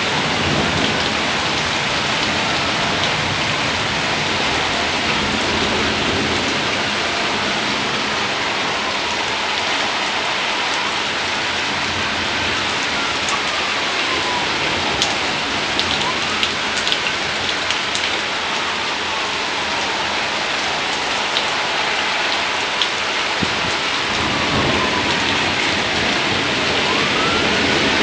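Heavy downpour: a steady, loud hiss of rain pouring down, with a few sharp ticks about halfway through.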